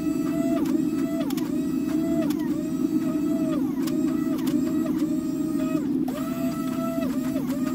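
Hydraulic forging press running as it squeezes a hot steel billet. The pump gives a steady hum, and above it a note holds and then drops over and over, about twice a second, with a few sharp clicks.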